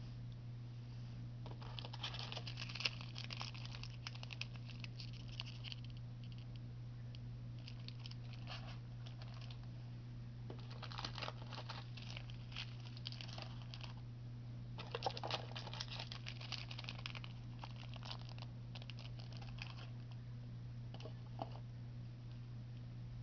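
Packaging being unwrapped by hand: paper and plastic crinkling and rustling in three stretches, over a steady low hum.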